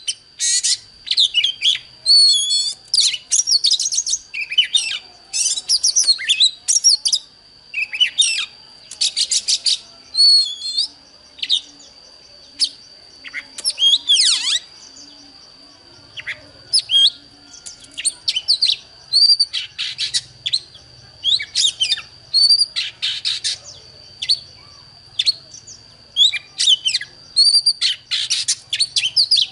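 Oriental magpie-robin singing: a rapid, varied run of short loud phrases of high whistles, slurred notes and trills, one after another with brief gaps, over a steady thin high tone.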